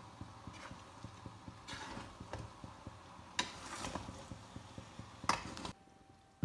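A utensil scraping and clicking against a stainless steel pan as a pasta mixture is stirred and tossed: irregular soft clicks, with two louder scrapes about three and five seconds in. It goes nearly silent just before the end.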